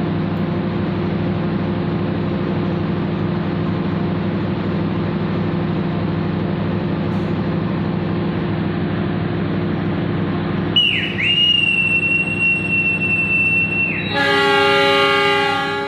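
Steady diesel engine drone of the waiting train. About eleven seconds in, the conductor blows one long, high whistle blast, dipping briefly at its start: the departure signal. About three seconds later the diesel locomotive answers with a short horn blast of about two seconds.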